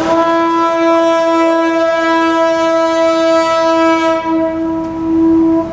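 Car ferry Midøy's ship horn sounding one long, steady blast rich in overtones, cutting off just before the end: a departure farewell signal on the ferry's last sailing.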